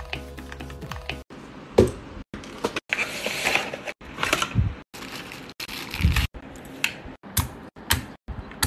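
Typing on a mechanical keyboard over background music, cut off about a second in. Then a string of short, abruptly cut handling sounds: paper packaging rustling and scraping, and plastic keyboard parts clicking and knocking.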